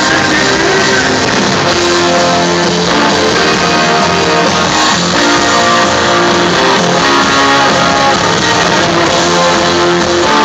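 Live rock band playing loudly in an arena, with electric guitars, drums and keyboards, heard through a cell phone's microphone.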